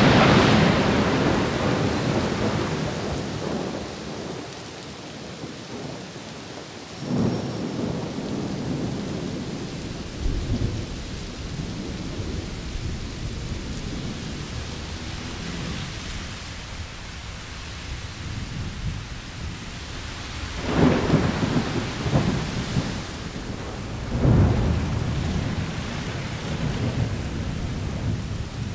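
Thunder rumbling over steady rain. A loud roll fades over the first few seconds, and more rolls swell up later, two of them near the end.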